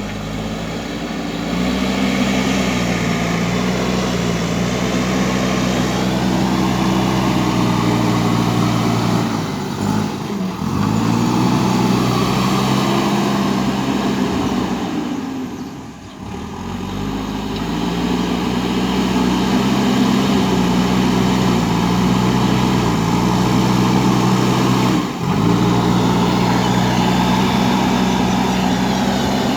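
JCB 3DX backhoe loader's diesel engine working hard, its revs dropping briefly and climbing back three times.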